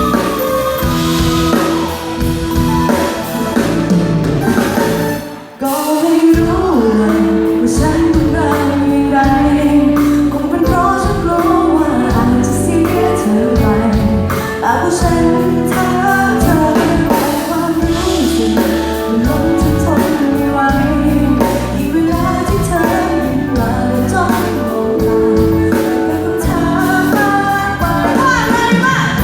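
Live pop song played by a band with a woman singing over it. The music drops out briefly about five seconds in, then comes back in full.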